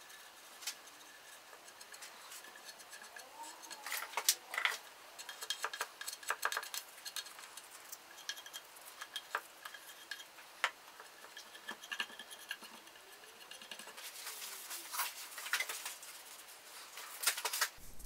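Soft, scattered scraping and small clicks of white grain filler being spread and worked into a Telecaster body with fingers and a plastic spreader. It is busiest about four seconds in and again near the end.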